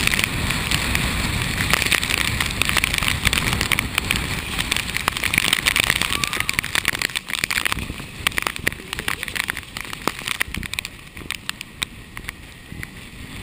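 Typhoon rain and wind buffeting a wearable camera, a dense rushing noise full of sharp ticks of raindrops striking the housing. The gusts ease and the sound drops noticeably about seven seconds in.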